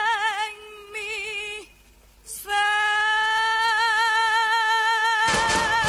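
A woman's amplified voice singing alone, without accompaniment: a held note with wide vibrato, a short break, then a long sustained final note with vibrato. Near the end a loud, dense wash of noise joins under the held note.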